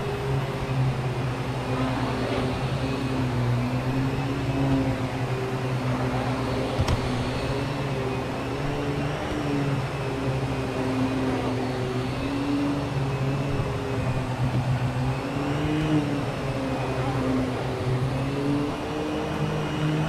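Vacuum cleaner running, its motor hum drifting slightly up and down in pitch, with a single click about seven seconds in.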